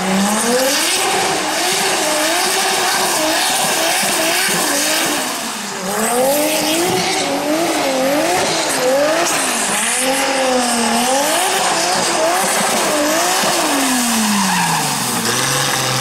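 BMW E30 drift car's engine revving hard in quick up-and-down swings, over a steady hiss of tyre squeal as it slides through the course. Near the end the revs fall away in one long drop.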